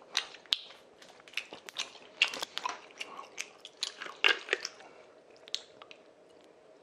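Plastic water bottle crackling and clicking as it is handled and its cap twisted open: an irregular string of sharp clicks that thins out about five seconds in.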